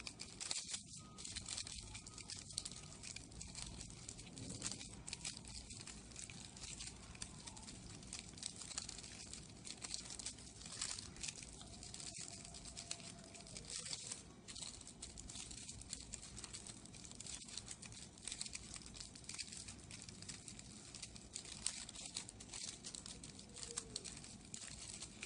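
Shiny metallic colour paper crinkling faintly in the fingers as it is rolled and folded into a small paper rose, a run of small irregular crackles.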